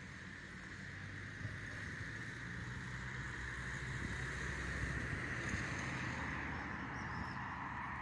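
A motor vehicle passing on a nearby road: engine hum and tyre noise swell to a peak about midway, then ease off a little.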